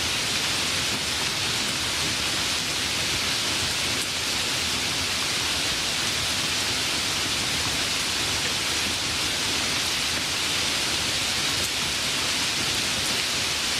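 Light rain falling, a steady even hiss with faint scattered drop ticks.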